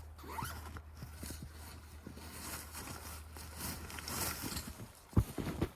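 Irregular crunching steps in snow, with a sharp knock about five seconds in.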